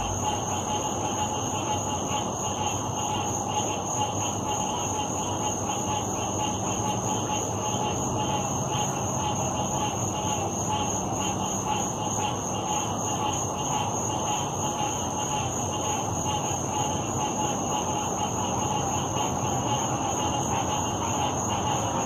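A dense, continuous chorus of frogs calling at night, many voices overlapping into a steady din, with a fast pulsing trill and a steady high-pitched whine on top.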